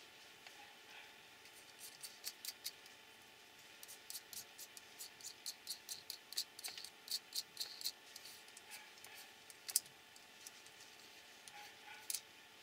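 Light clicks and ticks of small aluminium RC car damper parts being handled and fitted together by hand. A run of quick clicks lasts several seconds, followed by two sharper single clicks, the louder one about ten seconds in.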